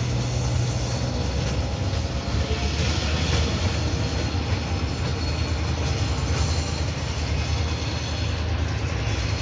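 A three-car Comeng electric suburban train set moving on transfer, running along the track with a steady low hum.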